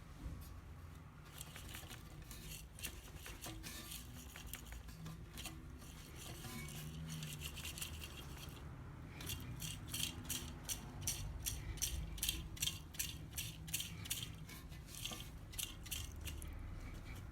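Mechanical clicking and rattling of hand tools, like a ratchet wrench being worked. About halfway in, the clicks settle into a fast even run of three to four a second, over a low steady rumble.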